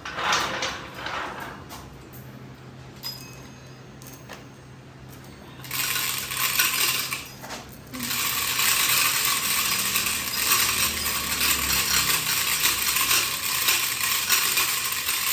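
Manual lathe humming, with metallic clinks and knocks. About six seconds in a loud, steady high hiss starts; it breaks off briefly and returns from about eight seconds on.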